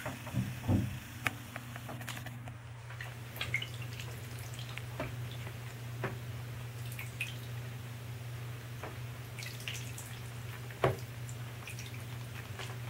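Small drips and splashes of shallow bathwater as mallard ducklings paddle about, over a steady low hum, with one sharper click near the end.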